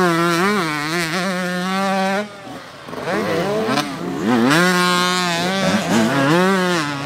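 Motocross bikes riding one after another through a rutted dirt corner, engines revving up and down as the riders roll off and get back on the throttle. The first bike's sound drops away about two seconds in, and the next bikes follow with the same rising and falling revs.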